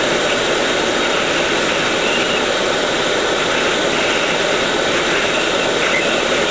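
Hot air rework station blowing steadily at full airflow, set to 480, its nozzle heating a surface-mount capacitor on a laptop motherboard to melt the solder so it can be lifted off with tweezers.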